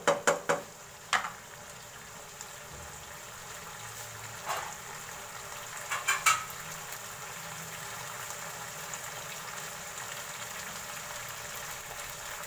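Thick mutton karahi gravy bubbling and sizzling steadily in a nonstick wok. A wooden spoon knocks sharply against the pan several times in the first second, and again about four and six seconds in.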